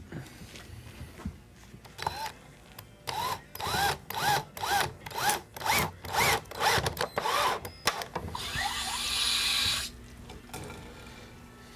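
Power drill driving a screw through a deer antler's skull plate into a foam head form. It runs in about eight short trigger bursts, the motor's pitch rising and falling with each, then one longer steady run of about a second and a half near the end.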